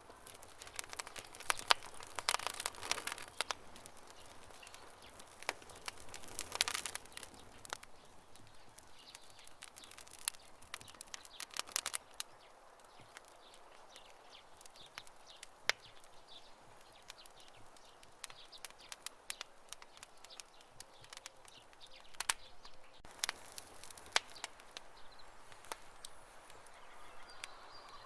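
Wood campfire crackling, with irregular sharp pops and snaps that come in a few busier spells over a faint steady hiss.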